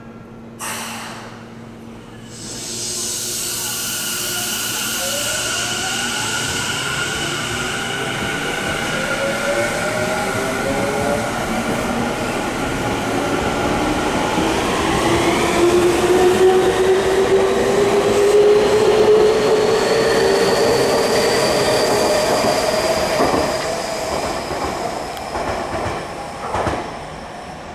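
Tokyu 5050 series 4000 subseries train pulling away from a platform. Its Hitachi IGBT-VVVF inverter and traction motors whine in several tones that glide upward together as it speeds up, over the sound of the wheels on the rails. The sound grows to a peak and then fades as the train leaves.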